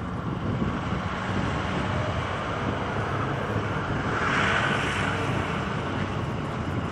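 A vehicle engine running steadily, with a swell of hiss about four to five seconds in that rises and fades.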